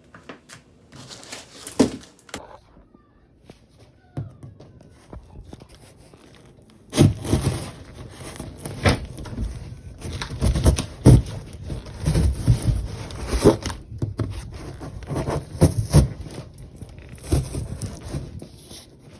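Irregular knocks, clatter and crinkling of objects being handled, sparse at first and much denser and louder from about seven seconds in.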